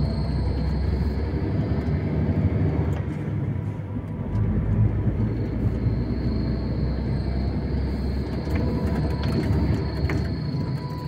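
Truck driving slowly with a steady low engine and road rumble. A thin steady high whine sits over it and fades out for a couple of seconds about three seconds in.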